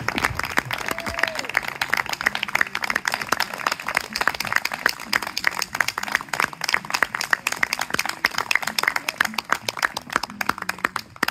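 Audience applause: many hands clapping densely and steadily, stopping suddenly at the end.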